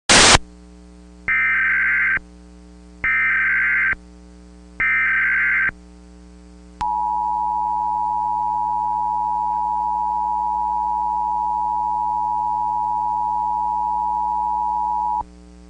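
Emergency Alert System test signal. A short loud burst of noise comes first, then three bursts of SAME digital header tones about a second each. Then the steady two-tone EAS attention signal (853 and 960 Hz) is held for about eight seconds and cuts off sharply. A faint steady hum lies underneath.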